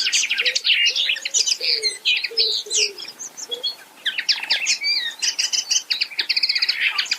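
Common linnet singing: a fast, continuous twittering song of rapid trills and chirps, with a brief lull just before four seconds in.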